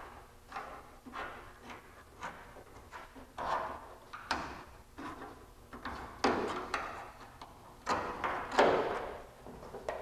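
Metal Mustang drip rail molding being pried up with a tape-wrapped church key and peeled off the roof's drip rail: irregular scrapes and clicks as it works free, with several louder scrapes spread through.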